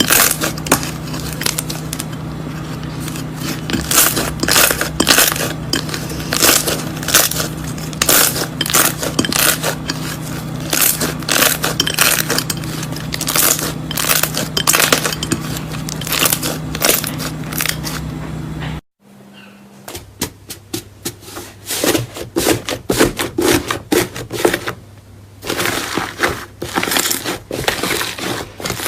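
Slime being squeezed and pressed by hand, giving a dense run of crackling, popping clicks over a steady hum. About two-thirds of the way through the sound cuts out briefly, then the crackling and popping resume with less hum behind them.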